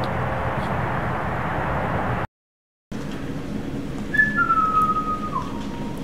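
Steady outdoor background noise that cuts out abruptly, then a person whistling a short descending tune: a brief high note, a longer note sliding slightly lower, and a final lower note held to the end.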